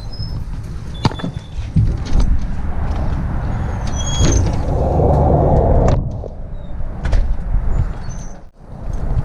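Scattered clicks and knocks of Jeep TJ steering-column parts being handled and refitted, over a steady low rumble.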